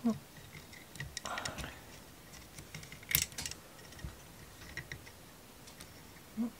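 Light scattered clicks and taps of small laser-cut wooden model parts and wire being handled and fitted together, with one sharper click about three seconds in.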